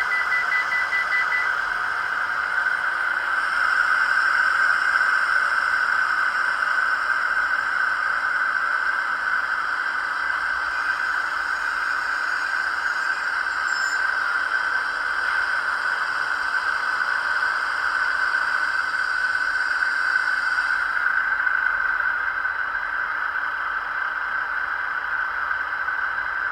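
ESU DCC sound decoder playing a diesel-electric locomotive's engine sound through the small speaker of an HO-scale DF200 model, running steadily. A brighter, hissier layer is added from a few seconds in until near the end.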